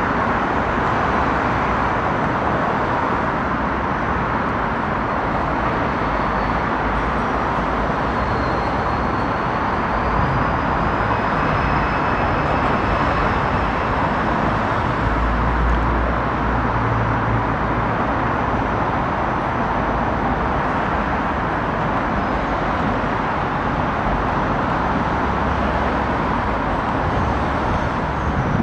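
Steady city traffic noise, an even wash of sound with no single vehicle standing out.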